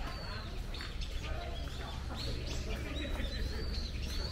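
Small birds chirping in the trees, many short high calls, some bending up and down in pitch, over a low steady rumble.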